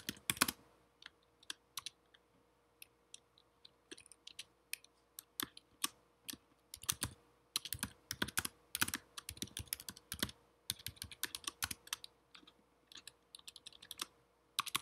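Typing on a computer keyboard: separate key clicks at an uneven pace, sparse at first and coming in quicker runs from about the middle on.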